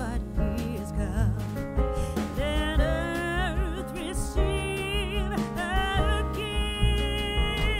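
Background music: a slow melody of long, wavering held notes over a steady bass.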